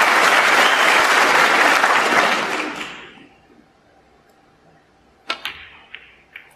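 Audience applause that dies away about three seconds in, followed by a few sharp clicks in the quiet.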